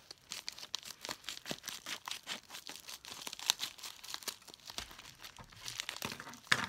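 Scissors cutting open a crinkly foil packet, then the cut-off strip being crumpled by hand: a dense run of sharp crackles and snips, loudest about three and a half seconds in and again near the end.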